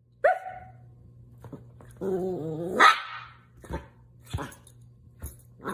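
Dog vocalizing: a short yelp just after the start, then a wavering whine about two seconds in that ends in a loud bark, followed by a few soft knocks.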